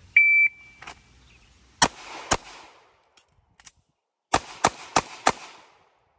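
A shot timer beeps once, then a handgun fires two quick shots about two seconds in. A couple of faint clicks from a slide-lock reload follow, then four more shots in quick succession. This is a timed six-shot string.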